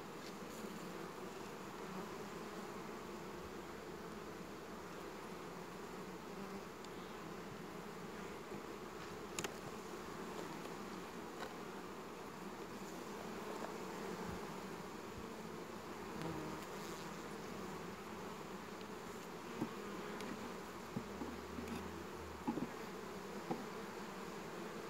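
A honeybee colony humming steadily in an open hive, with a few light knocks as the frames are handled.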